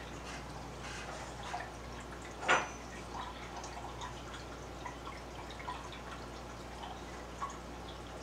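Water dripping and trickling into an aquarium, with scattered small drips and a louder splash about two and a half seconds in, over a low steady hum.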